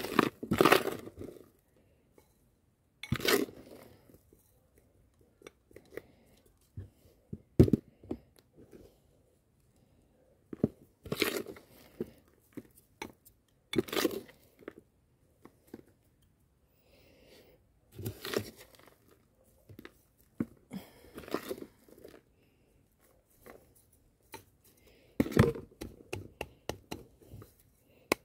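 Metal teaspoon scooping and scraping potting mix with perlite against a plastic tub and pot, in short crunchy bursts every few seconds with pauses between.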